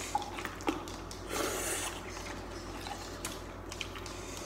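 Wet mouth sounds of eating instant noodles: scattered small clicks and smacks, with a short breathy slurping rush about a second and a half in.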